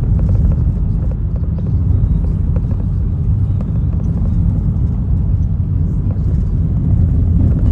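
Car driving, with a steady low rumble of road and engine noise.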